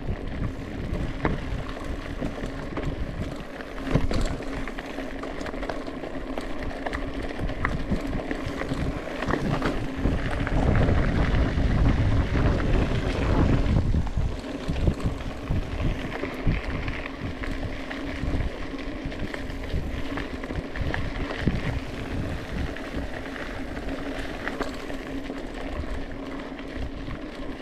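Mountain bike riding on a trail: continuous rattle and rumble with scattered sharp knocks, and wind on the microphone that swells for a few seconds about ten seconds in.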